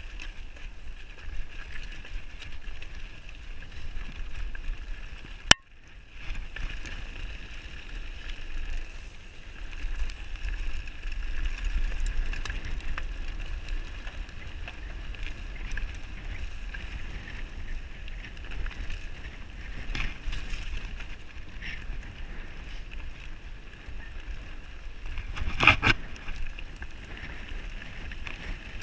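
Mountain bike rolling down a rough stony gravel track: tyre noise and frame and drivetrain rattle over the stones, with wind buffeting the microphone. There is a sharp click about five seconds in, and a loud burst of knocks and rattles near the end as the bike goes over rougher ground.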